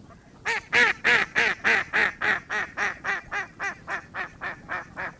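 A duck quacking in one long, evenly paced series, about three to four quacks a second, loudest at the start and growing gradually softer.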